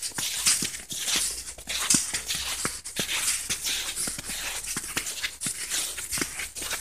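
Footsteps crunching through deep fresh snow at a walking pace, about two steps a second.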